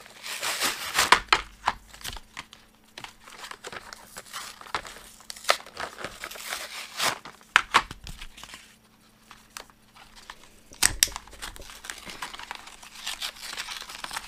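Paper and cardboard packaging of a washi tape set being torn open and crumpled by hand: irregular crinkling and rustling with sharper tears about a second in, around six to seven seconds and again near eleven seconds, quieter in between.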